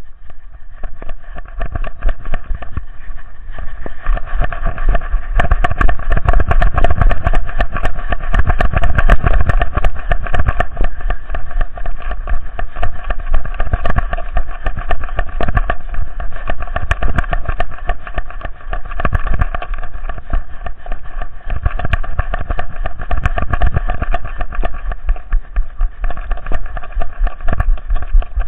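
Rumbling, rattling handling noise from a camera strapped to a running dog: a steady low rumble with rapid knocks and clatter as the dog bounds along, growing louder a few seconds in.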